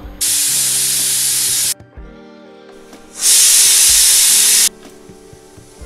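Prestige pressure cooker whistling: two loud hissing blasts of steam, each about a second and a half long, escape past the whistle weight with a short gap between them. They are the whistles counted to time the cooking.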